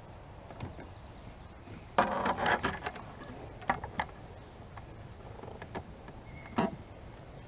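Fishing gear being handled in a kayak: a burst of rattling and clattering about two seconds in, then a few separate sharp clicks and knocks.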